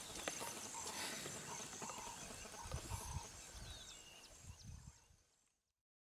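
Outdoor savanna ambience: animal calls, short chirps and repeated short notes over a steady high drone, with a few low thuds, fading out about five and a half seconds in.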